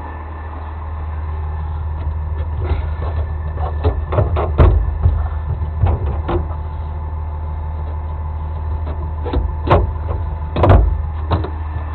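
A truck engine idling steadily, with a string of sharp knocks and clanks from a few seconds in and two louder ones near the end.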